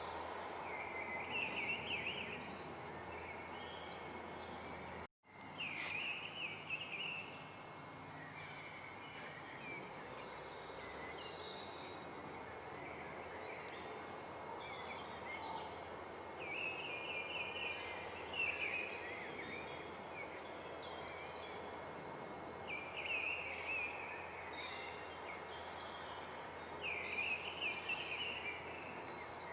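Songbird singing short, warbling phrases that recur every few seconds, over a steady background hiss of outdoor ambience. The sound drops out completely for a moment about five seconds in.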